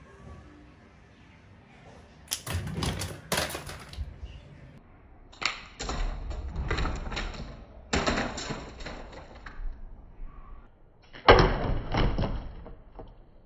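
A homemade slingshot shooting at a plastic water bottle on a plastic bin lid: four bursts of sharp snaps, knocks and rattling, each a second or two long, the last the loudest.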